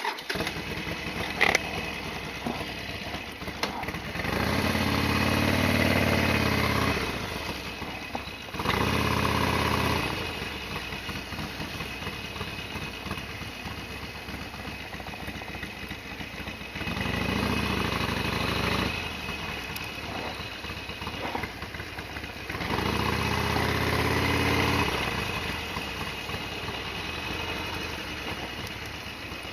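Harley-Davidson XL1200R Sportster's air-cooled 1200 cc V-twin running at idle, revved up four times with short throttle blips.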